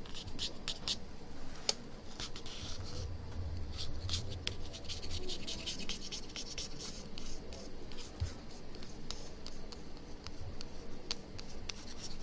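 Many short scraping and rubbing strokes on iPhone 6 Plus screen glass, working off the polarizer glue loosened by a removal liquid.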